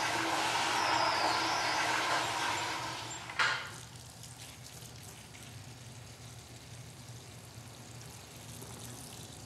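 Toilet flushing in a small tiled restroom: a rush of water that dies away over the first few seconds. A single sharp knock follows at about three and a half seconds, then quiet room tone.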